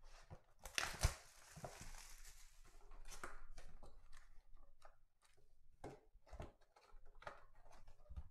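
Cardboard trading-card hobby box being taken off a stack and opened by hand: knocks and taps with rustling and sliding of the lid and packaging, the loudest knock about a second in.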